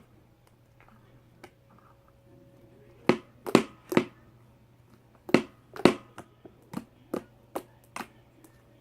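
Slime being squeezed and stretched by hand, making a string of sharp pops and clicks, about a dozen, starting about three seconds in.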